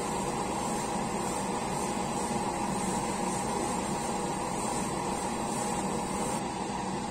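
Airbrush hissing as it sprays silver paint onto a small model part, over a steady machine drone. The airbrush hiss cuts off suddenly about six seconds in.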